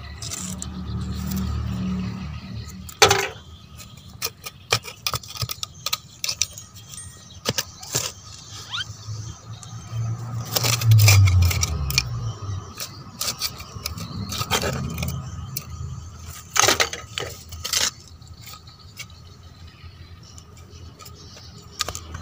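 Hands pressing and scraping gritty, stony soil around a transplanted tomato seedling: scattered clicks and scrapes of small stones and grit, with a couple of low rumbles.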